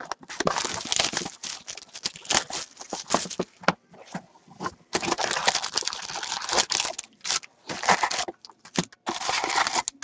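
Plastic shrink wrap crinkling and tearing as it is stripped off a Panini Contenders hockey card box. After a short lull about halfway, the cardboard lid is opened and the foil card packs rustle as they are pulled out.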